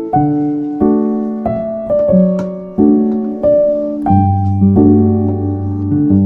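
Background piano music: soft chords and melody notes struck about once a second, each ringing and fading.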